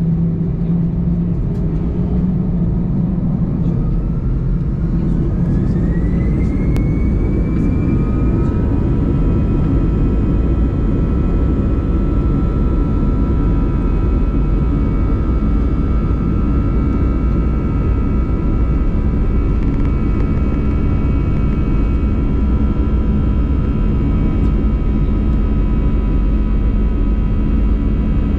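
Airbus A320 jet engines heard from inside the cabin, over a loud, steady low rumble. About four seconds in, a whine rises in pitch and levels off into a steady high hum a few seconds later: the engines spooling up for departure.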